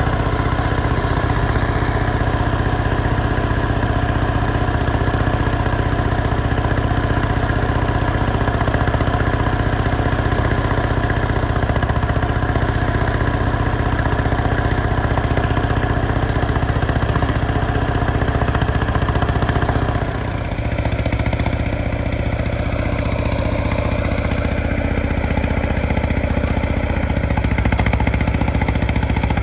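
Detroit Diesel 6V92TA two-stroke V6 diesel running steadily. About twenty seconds in the sound dips briefly, then carries on with its higher tones weaker.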